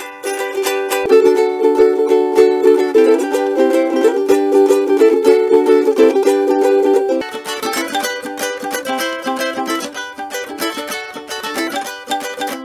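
Cigar box ukulele played, chords strummed in a tune; louder for about the first seven seconds, then softer.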